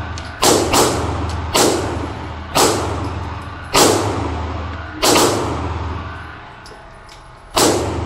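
Seven pistol shots from a 9mm Glock 43 firing 115-grain rounds, each a sharp crack with a short ringing tail. The shots come at an uneven pace, roughly one a second, and the last follows a longer pause of about two and a half seconds.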